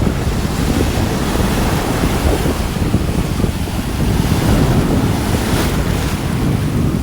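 Rough Atlantic surf: heavy waves breaking and churning in a steady, loud, low rumble, with wind buffeting the microphone.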